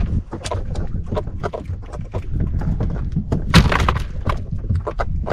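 Freshly caught horse mackerel flapping in a plastic basket: a run of irregular taps and knocks, loudest about three and a half seconds in, over a low rumble.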